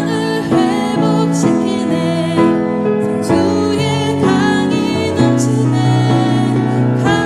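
Slow gospel ballad music with piano accompaniment and a wavering, vibrato melody line over held chords.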